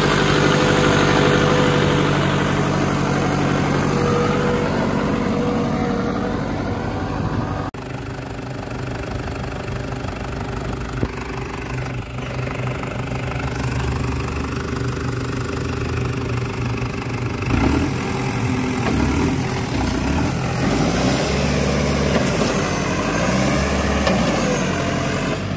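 Farmtrac 6055 turbo tractor's diesel engine running steadily as the tractor works across tilled soil. The sound drops abruptly about eight seconds in, and the engine note wavers in the later part.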